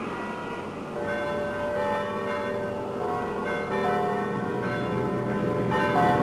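Church bells ringing, several bell tones struck one after another and overlapping as they ring on, starting about a second in, over a steady background noise.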